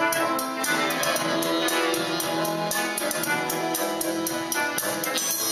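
Instrumental music accompanying the act, several instruments playing together over a quick, steady percussion tick.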